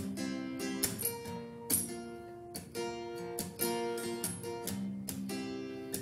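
Solo acoustic guitar strumming chords, with a firm stroke about once a second and the chords ringing between strokes.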